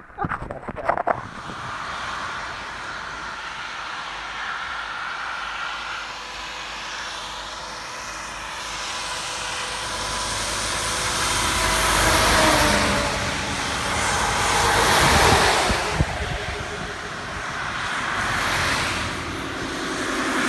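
Cars and a lorry passing one after another on a wet road, each swelling into a hiss of tyres on wet tarmac and then fading. The loudest passes come about twelve, fifteen and nineteen seconds in.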